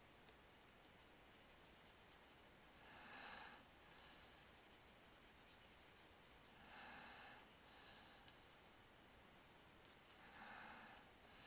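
Near silence: a person breathing slowly and softly close to a headset microphone, three breaths about four seconds apart. Faint light scratchy ticks come between the first two breaths.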